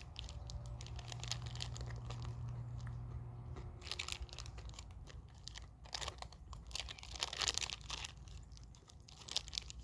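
A person chewing a Reese's Crispy Crunchy bar, a chocolate-coated crispy peanut butter candy, with scattered soft crunches in the second half.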